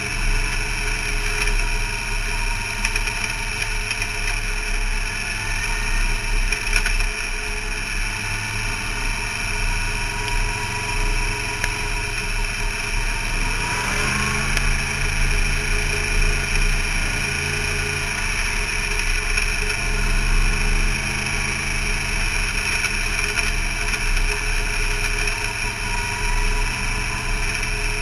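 Race car's engine heard from inside the cockpit, running steadily at low revs. About halfway through, its pitch briefly rises and a deeper, stronger engine note comes in and holds.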